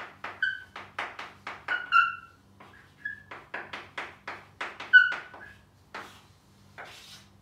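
Chalk writing on a blackboard: quick tapping strokes, about five a second, with short high squeaks of the chalk. The strokes pause for under a second about two and a half seconds in and then resume. Near the end there are a few separate strokes and one longer scrape.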